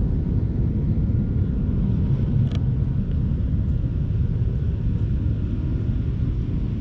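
Steady low rumble of wind on the microphone.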